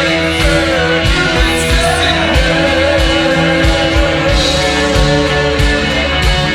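Slowed-down, reverb-heavy post-punk rock song: a sung female vocal over guitar, bass and a steady drum beat.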